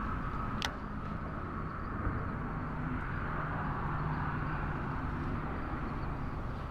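Electric trolling motor running steadily, a low hum whose pitch drops slightly about halfway through, under a rushing noise. A single sharp click about half a second in.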